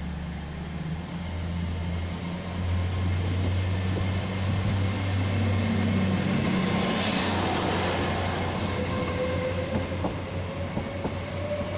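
Class 802 bi-mode express train pulling away from the platform on its underfloor diesel engines. A steady low drone builds about two seconds in, and from about eight seconds a whine rises slowly in pitch as the train gathers speed.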